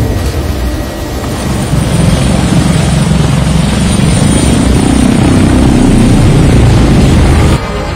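Large rotors spinning with a steady, helicopter-like whirring that builds over the first two seconds, holds, and drops off suddenly just before the end.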